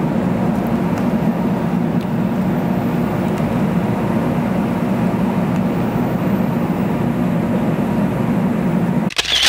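Steady low rumble of a moving vehicle, unchanging throughout, broken off abruptly near the end by a short burst before the sound cuts out.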